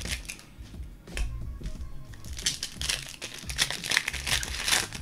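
Background music with the crinkle and rustle of trading-card pack wrappers and cards being handled, in many short irregular bursts.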